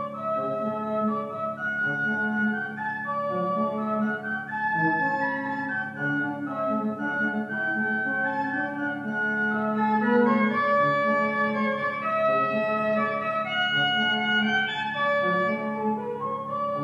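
Church organ playing slow music: held chords over a steady low note, with a melody line moving above.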